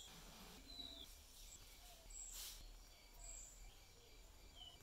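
Near silence: faint background hum with a few short, high bird chirps scattered through it.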